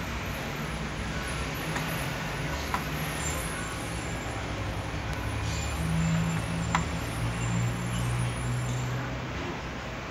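Two sharp clicks of buttons pressed on an LG X-Boom stereo's front panel, one about a quarter of the way in and one past halfway, over a steady low rumble that swells for a few seconds in the second half.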